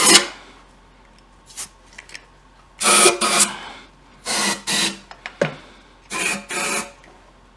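Compressed-air blow gun giving several short hissing blasts, mostly in quick pairs, blowing a cleaned engine part clean.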